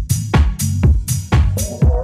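House music from a DJ mix: a steady four-on-the-floor kick drum at about two beats a second over a bassline, with a pitched melodic line coming in near the end.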